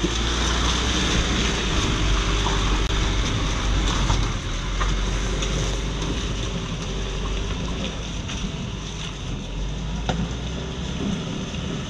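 A motorcycle on the move, its engine running steadily under heavy wind noise on the microphone, with a few light knocks, among them one about five seconds in and one about ten seconds in.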